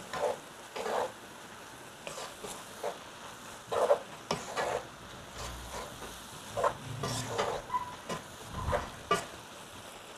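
Wooden spoon stirring and scraping a stir-fried vegetable filling of cabbage, peppers and carrots in a large speckled stone-coated pan, in irregular strokes over a faint sizzle.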